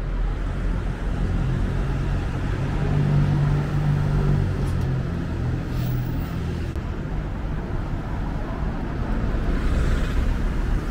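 Road traffic on a busy city street: cars and a box truck driving past, with a low engine drone that is loudest about three seconds in.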